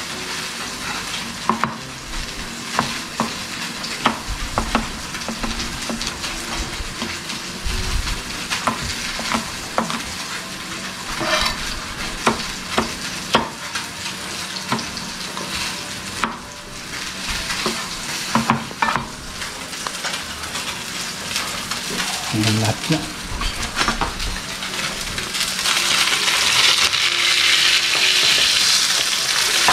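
Salmon fillet sizzling steadily as it pan-sears in a frying pan, with sharp knife chops on a plastic cutting board as bell pepper is diced. The sizzle grows louder near the end.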